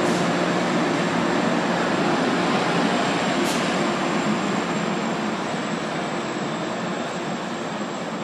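Tri-Rail diesel commuter train pulling away from the station: a steady rumble of bilevel coaches rolling past, with a low engine drone. It fades gradually over the last few seconds as the train draws away.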